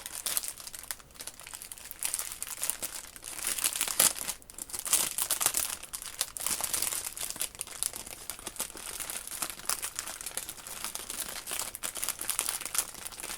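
Plastic packaging crinkling and rustling as it is handled, in quick irregular crackles, loudest about three to five seconds in.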